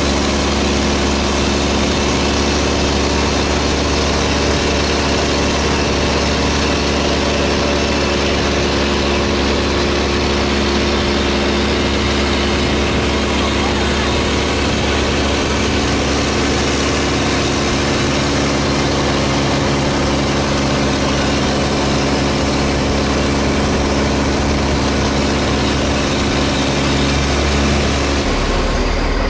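River taxi boat's engine running steadily: a constant low, droning hum with a hiss over it. Near the end the hum changes in pitch.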